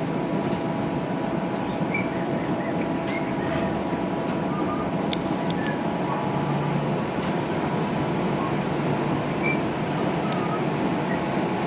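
Interior of a TTC streetcar running: a steady rumble and hiss, with a faint steady whine.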